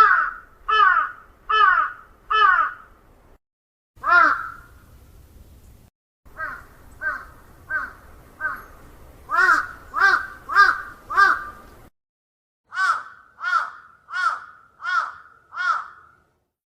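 Crows cawing: runs of short, harsh caws about one to two a second, first four, then a single caw, then about eight, then about six, with brief dead-silent gaps between the runs.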